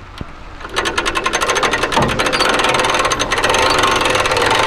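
Car-trailer winch hauling a car up onto the trailer bed: a fast, even mechanical clatter that starts about a second in and keeps going.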